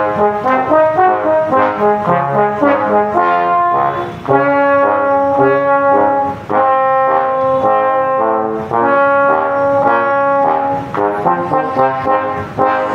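Bass trombone and a second trombone playing a march together in two-part harmony. Short detached notes give way to longer held notes in the middle, then short notes again.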